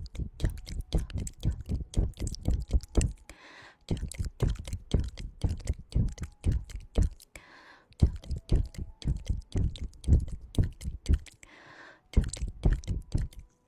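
Close-up ASMR tongue clicks and wet mouth sounds in quick, uneven runs of several a second. Short breathy sounds come between the runs.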